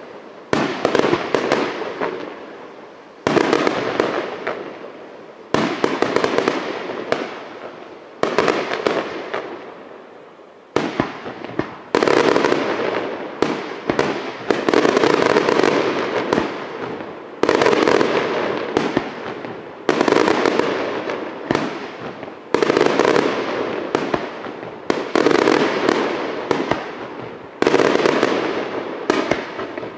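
Aerial firework shells bursting one after another, about every two to three seconds, each a sharp bang followed by a fading crackle of stars. From about twelve seconds in, the crackling stays loud between bursts.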